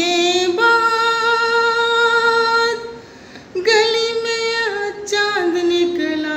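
A woman singing unaccompanied, holding long drawn-out notes, with a brief break about three seconds in and the pitch stepping down in steps toward the end.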